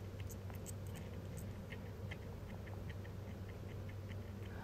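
Newborn kitten suckling at a nursing bottle's nipple: faint, irregular little sucking clicks, several a second, over a low steady hum.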